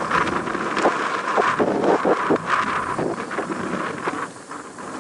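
Airbus A350-941's Rolls-Royce Trent XWB jet engines during the landing roll: a loud, rushing noise full of crackles, easing about four seconds in, mixed with wind buffeting the microphone.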